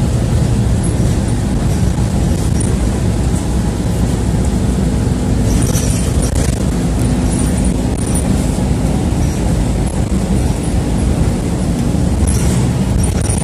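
Inside a city bus under way: the steady rumble of its engine and road noise, with a few faint rattles.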